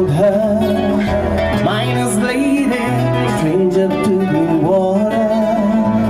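Country music: acoustic guitar accompaniment with a melody line above it that glides between notes.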